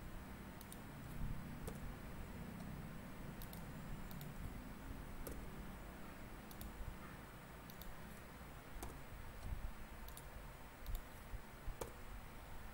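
Scattered light clicks from a computer mouse and keyboard during document editing, a dozen or so at irregular intervals, over faint low room noise.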